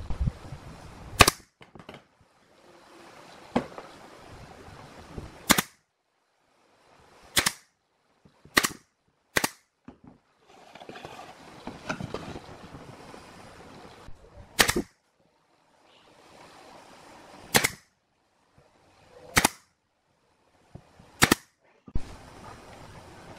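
Pine boards of a speaker box knocking sharply against each other and onto a wooden workbench as the panels are fitted together and set down. About ten single knocks, spread a second or two apart, with short stretches of silence between some of them.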